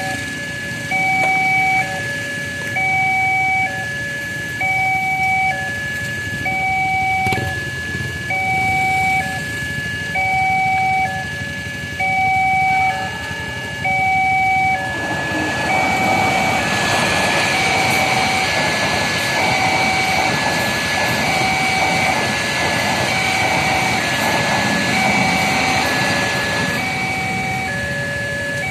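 Railway level-crossing warning alarm sounding a two-tone signal, alternating between a higher and a lower tone about once a second. About halfway through, a steady rushing rumble rises and holds under the alarm as a train passes over the crossing.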